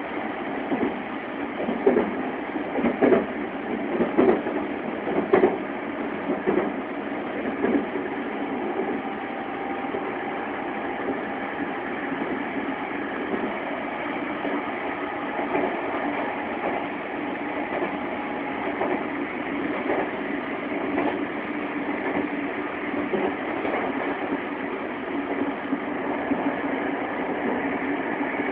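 Interior running noise of a JR West 225 series electric train at speed: a steady rumble of wheels on rail. In the first several seconds a string of sharp knocks comes through as the wheels clatter over track joints, then the running noise settles to an even rumble.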